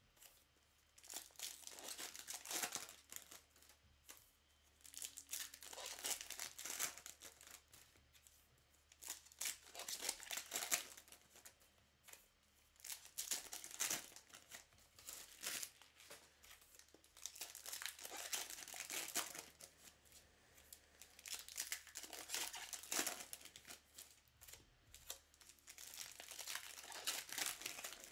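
Foil trading-card pack wrappers being torn open and crinkled, in irregular bursts of rustling.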